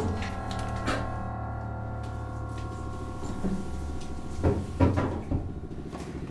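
Film score: a held, droning music pad over a low hum, with a thump about a second in and a few more thumps in the second half from a physical struggle.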